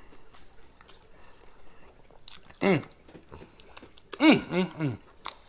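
Close-miked mouth sounds of a man eating fries with his fingers: chewing, lip-smacking and finger-licking clicks. There is a short falling vocal sound about two and a half seconds in and three more in quick succession around four seconds in.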